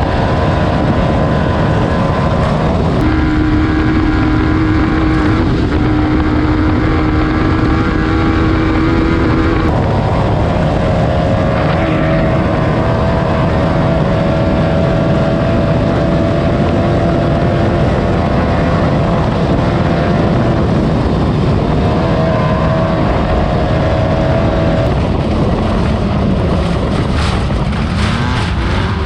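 Off-road race car's engine running hard at a steady pace, its pitch changing to new levels a few times as the car shifts or changes speed, with a few sharp knocks near the end.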